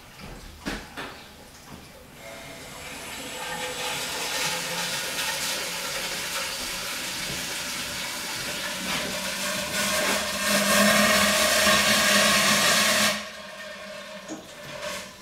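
Steam hissing out of a vent pipe. The hiss builds up about two seconds in, grows louder around ten seconds, and cuts off suddenly near the end.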